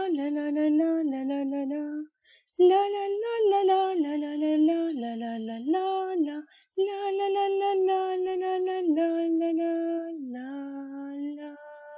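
A woman's voice singing a slow melody alone, in three phrases with short breaks between them; the last note glides down, is held and fades near the end.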